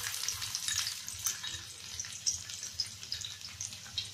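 Chopped garlic sizzling in hot oil in an iron kadhai: a steady hiss dotted with many small crackling pops.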